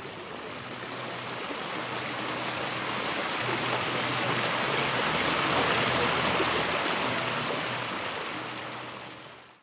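A steady rushing, hissing noise with a faint low hum under it. It swells to its loudest about halfway through and fades out near the end.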